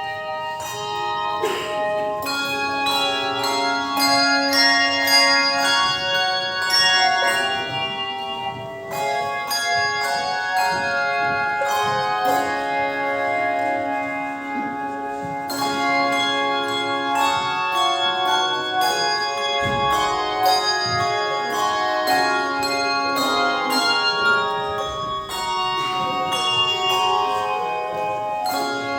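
A bell ensemble plays a melody on a set of tuned bells. Many strikes overlap as their notes ring on, and a low bell note is held for several seconds at a time in stretches.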